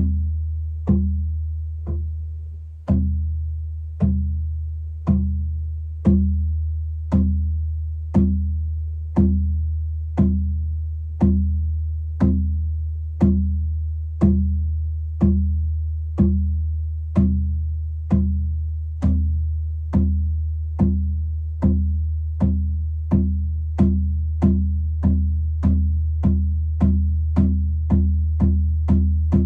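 A drum struck in a steady beat that gradually speeds up, from about one stroke a second to about two a second, each stroke ringing briefly over a low steady drone.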